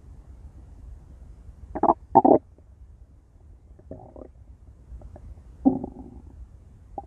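Stomach growling: a few short gurgling rumbles. The loudest is a quick double gurgle about two seconds in, weaker ones follow near four and six seconds, and a brief one comes at the end.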